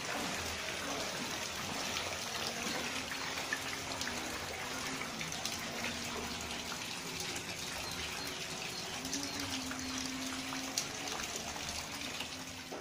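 Rain pouring down, with water running and splashing on wet ground and plastic sheeting: a steady hiss with a dense patter of drops.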